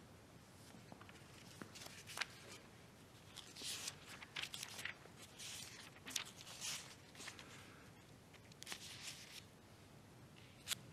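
Faint rustling and shuffling in a quiet room: a string of short, soft rustles, most of them between about three and nine seconds in.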